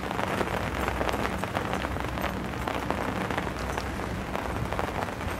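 Rain falling steadily in a dense patter of drops on surfaces, over a low steady hum.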